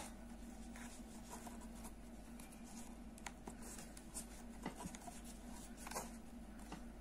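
Faint scratching and small clicks of a metal crochet hook and cord being worked through the holes along a wooden bag side, over a low steady hum.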